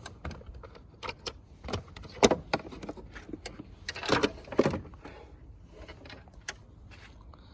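Something small being handled and opened by hand: an irregular string of sharp clicks and knocks, with a short rustling patch about four seconds in.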